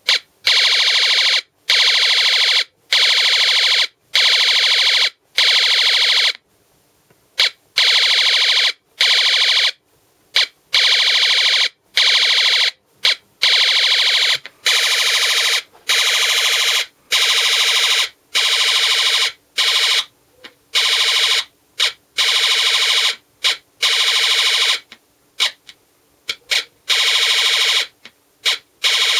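Electronic machine-gun sound effect from a homemade circuit played through a small loudspeaker: repeated bursts of buzzy rattling fire, most about a second long with a few short stabs, separated by brief pauses.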